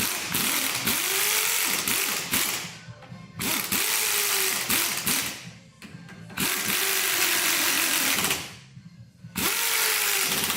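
Handheld power tool motor spinning up and running in four bursts of two to three seconds with short pauses between, the pitch rising and then holding in each burst, as the flywheel is fastened to the F1 V10 engine.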